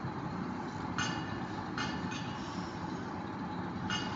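Steady room background noise with a few brief soft rustles.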